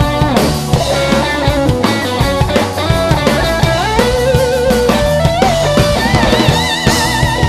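Live rock band playing an instrumental passage: drum kit keeping a steady beat under guitar, with long held notes that waver in pitch toward the end.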